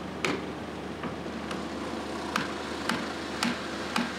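Lump hammer striking a lock gate's steel collar, knocking it free: a series of sharp metal-on-metal blows, about two a second, over a steady engine hum.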